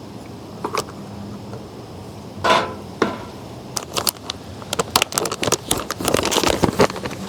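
Hard plastic and metal parts of a GSI hand coffee grinder being handled: scattered clicks and knocks, a short scrape about two and a half seconds in, then a quick run of clicks and clatter in the second half.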